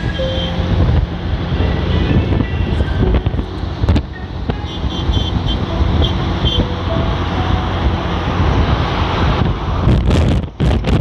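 Wind buffeting the microphone over a steady low road rumble from travelling in a vehicle, with faint background music underneath; the wind crackles and cuts out in gusts near the end.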